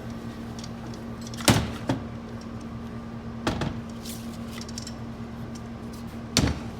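A few sharp knocks and clunks of metal automatic-transmission parts being handled and set down, the loudest about one and a half seconds in and another near the end, over a steady low hum.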